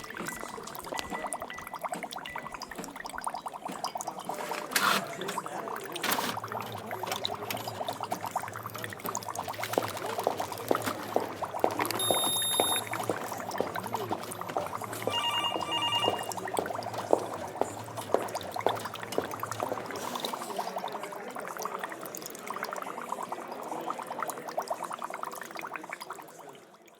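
Laboratory sound-effect ambience: liquid bubbling and gurgling with a dense crackle of small clicks, and a low machine hum through the middle. Short electronic beeps sound twice around the middle, and it fades out at the very end.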